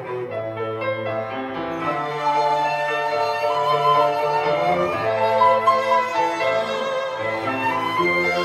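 Live chamber quartet of flute, violin, cello and piano playing a slow, lyrical melody. The violin carries the tune over held cello bass notes, and the music grows fuller and brighter about two seconds in.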